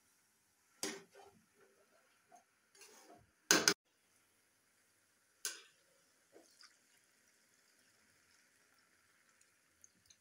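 A steel spatula clanking and scraping against a metal pan of grated carrots, a few sharp strokes with the loudest about three and a half seconds in. From about six seconds in, milk pours into the pan with a faint, steady splash.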